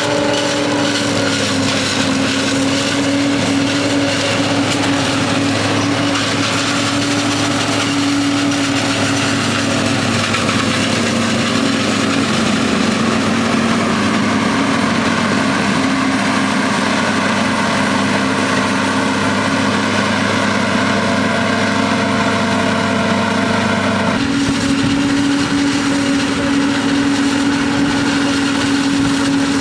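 Diesel engine of large farm machinery working a corn silage harvest, running steadily and loudly under load. The tone dips slightly in pitch about a second in and changes abruptly near the end.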